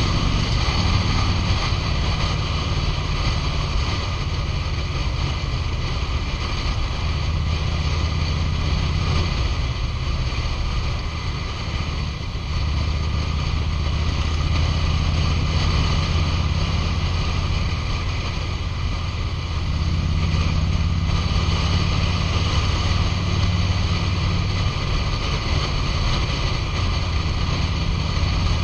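2005 Harley-Davidson Road King's Twin Cam 88 V-twin engine and exhaust running under way at freeway speed, its low note growing and easing a few times, with steady wind rushing over the microphone.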